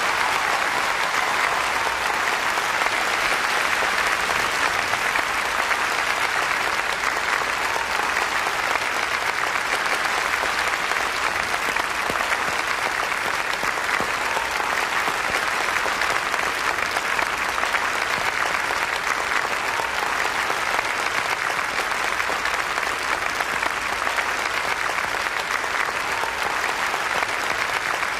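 Large audience applauding steadily and without a break, a long ovation welcoming an introduced guest.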